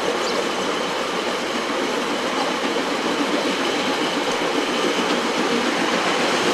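Steady running noise of a steam-hauled passenger train rolling along the rails at speed, heard from inside a carriage.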